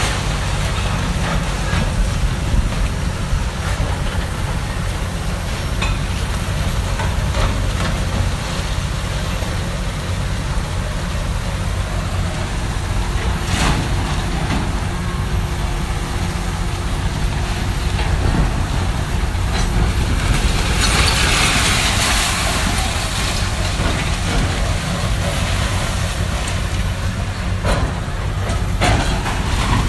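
Heavy demolition machinery running steadily with a low rumble, with scattered knocks and a brief hissing rush about two-thirds of the way through.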